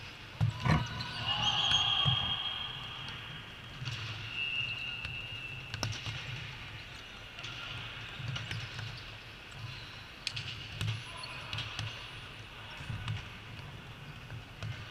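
Indoor volleyball play: the ball being struck, with sharp thuds and knocks scattered through, the loudest about a second in, and a couple of brief high squeaks from shoes on the court.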